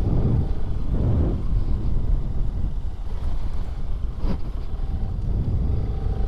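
Motorcycle under way at steady speed: a continuous low engine and road rumble with wind noise on the microphone, and a single short click about four seconds in.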